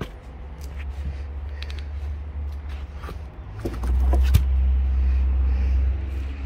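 Sawmill engine running with a steady low rumble that grows louder about four seconds in and eases off near the end, with scattered knocks and clicks.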